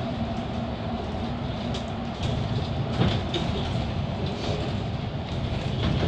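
Inside a moving Mercedes-Benz Citaro articulated city bus: steady engine and rolling rumble with light rattles, and a sharper knock about three seconds in.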